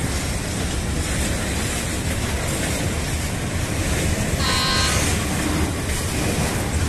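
Freight train being shunted: locomotive and wagons moving with a steady low rumble, and a brief high tone about four and a half seconds in.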